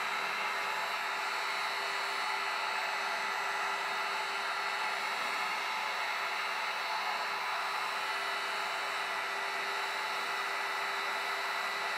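Electric heat gun running steadily: an even blowing hiss with a faint steady hum.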